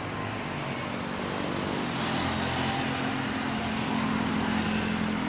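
Batik Air Airbus A320's jet engines on the landing roll: a rushing roar with a low droning hum that grows louder about two seconds in as the engines spool up for reverse thrust.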